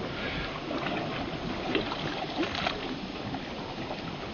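Water rushing and lapping along the hull of a small sailboat moving under sail, with a few brief splashes.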